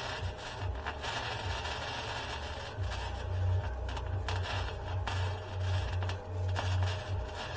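Arc welding on steel: a steady crackling sizzle over a low electrical buzz, breaking off briefly a few times as the arc stops and restarts.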